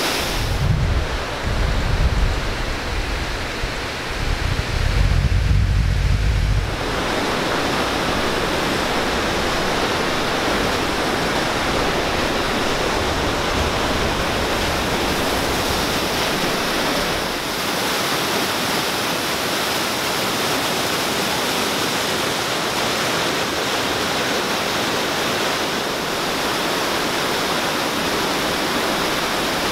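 Ladder Creek's whitewater cascades and falls rushing: a loud, steady roar of water over rocks. For about the first seven seconds a low rumble buffets the microphone, then it stops.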